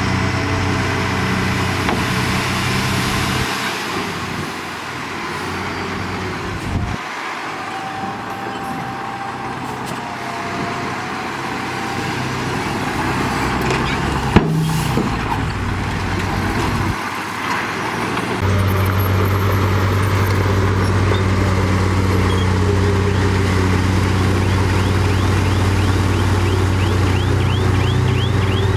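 Diesel engines of heavy earthmoving machines running, with a low steady drone that drops away for a while and comes back stronger about two-thirds of the way in. A single sharp click about halfway through.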